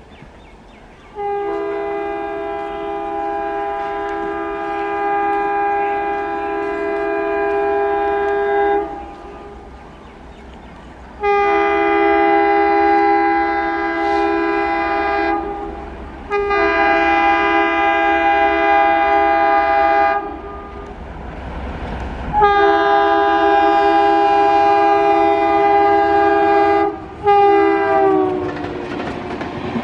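ALCo WDM-3D diesel locomotive's multi-tone air horn sounding four long blasts and a short fifth one that drops in pitch as the locomotive passes, followed by the rising rumble of the train coming through.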